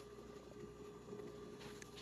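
Faint room tone: a low steady hum with a few soft ticks.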